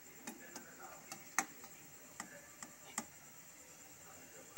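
Bread gulab jamun balls deep-frying in oil on a low flame: faint, irregular pops and ticks, about seven in three seconds, the loudest about one and a half seconds in.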